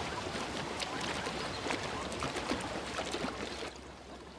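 Zebra hooves splashing and sloshing through shallow, muddy water: many small overlapping splashes that thin out and grow quieter about three and a half seconds in.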